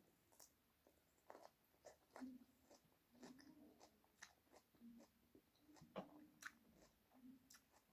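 A person chewing food close to the microphone, faint, with irregular mouth clicks and small crunches.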